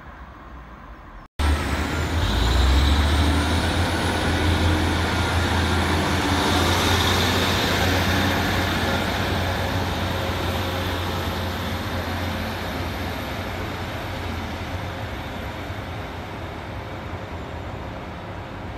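Diesel multiple unit running close by: a heavy low engine rumble with a thin high whine over it. It starts abruptly about a second in, is loudest just after and slowly fades.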